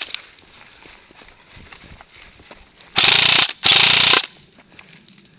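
VFC HK416 airsoft electric gun firing two short full-auto bursts about three seconds in, each about half a second long, its gearbox clattering at a fast rate of about 33 rounds a second.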